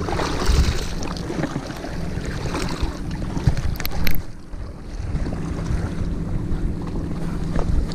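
Wind buffeting a body-worn camera's microphone, with a few scuffs and knocks from handling about three and a half to four seconds in.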